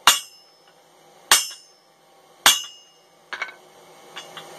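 A hammer strikes the steel top die of a blacksmith's guillotine three times, about a second apart, each blow ringing out as it fullers a hot steel bar on both sides. Lighter metal clinks follow near the end.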